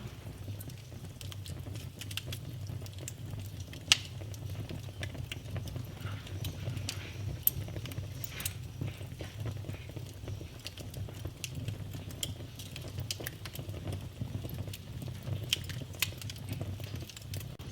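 Wood fire in a fireplace crackling, with a low steady rumble of flames under constant small crackles and scattered sharp pops, the loudest about four seconds in and again near the middle.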